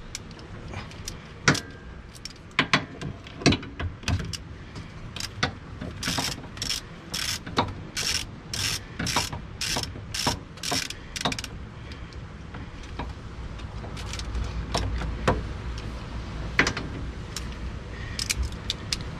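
Hand ratchet with a Torx T30 bit turning a battery terminal bolt. It starts with a few separate metal clinks, then a run of ratchet clicking in even strokes about two a second for some five seconds, then more clinks near the end.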